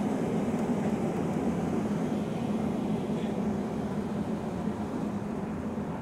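Tram running along a city street, heard from inside the passenger car: a steady low rumble and hum.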